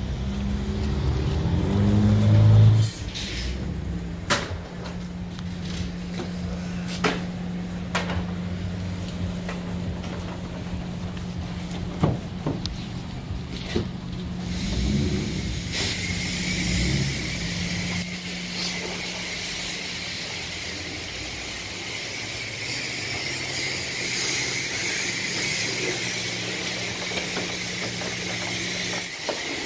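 Car-wash foam brush and hose spraying with a steady hiss from about halfway through, over a continuous low hum, with scattered knocks from the brush against the truck.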